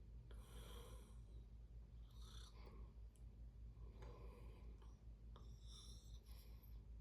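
A sleeping person's soft breathing in a lull between snores: several faint airy breaths about every two seconds, over a steady low hum.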